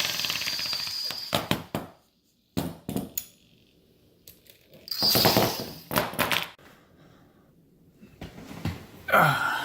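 The high whine of a small combat robot's spinning weapon dies away in the first two seconds, followed by a string of short clinks, knocks and rattles of small hard parts being handled and set down.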